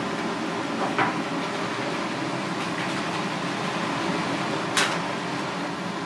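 Steady machine hiss of kitchen background noise, with two short sharp clicks, one about a second in and a louder one near the end.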